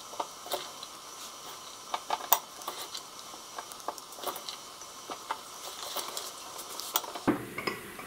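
Soft rustle of grated carrot being dropped by hand into half-litre glass jars, with scattered small clicks throughout.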